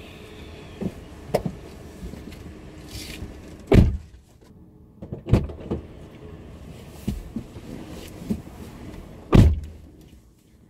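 Car door shutting with a heavy thump twice, heard from inside the cabin, about four seconds and nine seconds in, with smaller knocks and rustling between as someone gets into the driver's seat.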